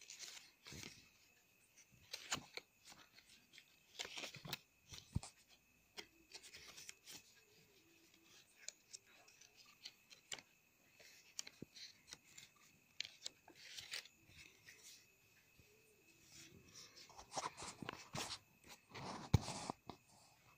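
Paper and cardstock rustling and scraping as a handmade greeting card's folded flaps are handled, opened and folded back, in faint, irregular bursts with a few small clicks.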